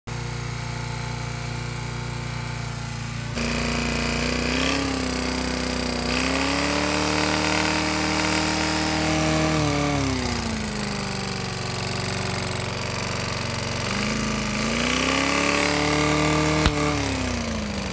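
Briggs & Stratton small engine running with a rod knock, getting louder a few seconds in, then revving up and back down twice. A sharp click comes near the end.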